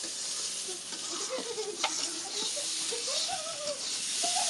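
A steady hiss, with faint voices in the background and one sharp click a little under two seconds in.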